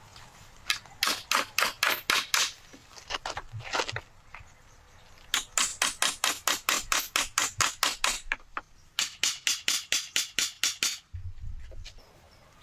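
Rapid series of sharp knocks in bursts, about four or five strikes a second, the longest run about three seconds long.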